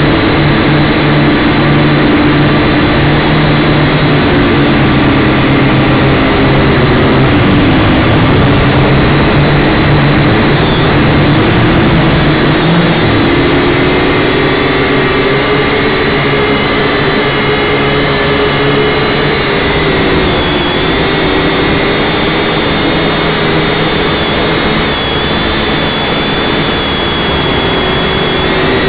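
Syma X5C quadcopter's four small brushed motors and propellers running loudly, heard right beside them through the onboard camera's microphone. The pitch shifts up and down now and then as the quadcopter manoeuvres.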